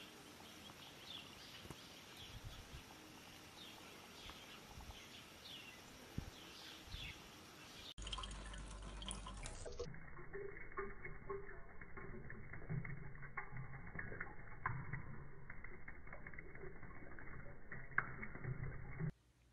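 Birds chirping faintly for the first several seconds. After that comes a louder thin stream of water running from a tap, with small clicks as a cat drinks from it.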